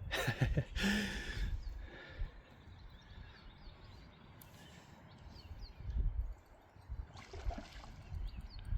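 Outdoor bankside ambience: low wind rumble on the microphone with faint small-bird chirps. Two short rushing noises stand out, one in the first second or so and another about seven seconds in.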